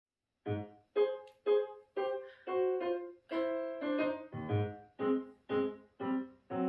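Piano accompaniment playing an intro of short, punchy chords, about two a second, starting about half a second in.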